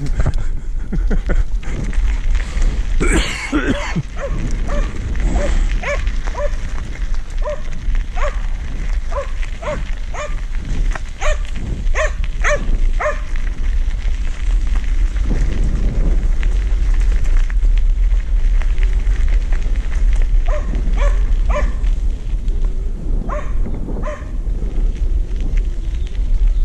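Border collie barking many times in quick short yelps while running alongside a moving bicycle, over a steady rumble of wind on the microphone and tyres on a gravel path. The barking is thickest through the first half and comes again near the end.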